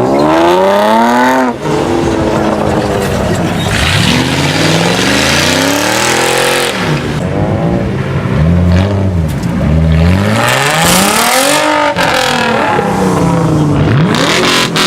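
Car engines revved hard again and again, the pitch climbing and dropping about six times, as cars accelerate away.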